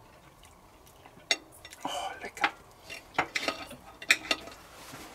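Knife and fork on a plate while food is cut, with half a dozen sharp clinks and a short scrape.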